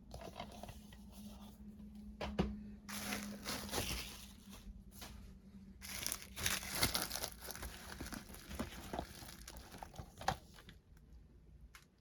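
Packaging being unwrapped by hand, crinkling and tearing in two main spells, with a couple of sharp clicks.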